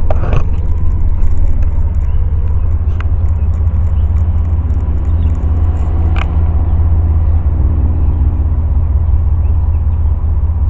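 Steady low rumble of a car, heard from inside the cabin, with a few light clicks in the first few seconds.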